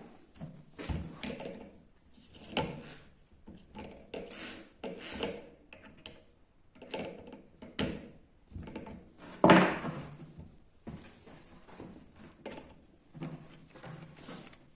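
Irregular knocks and scraping of tools and metal being handled, one every half second to a second, with one louder knock about nine and a half seconds in.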